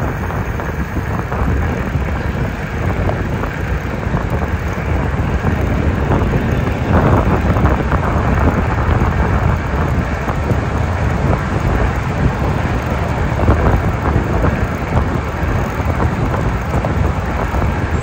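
Steady road traffic noise with wind on the microphone, heard from an e-bike riding beside an interstate highway.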